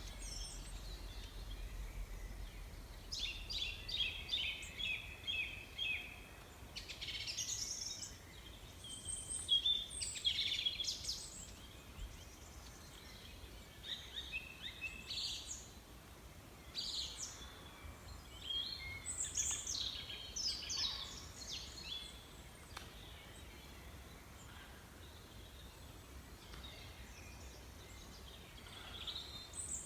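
Birds chirping and singing in short bursts of high notes, including a quick run of repeated notes a few seconds in, over a low steady background hum. The calls thin out for several seconds near the end.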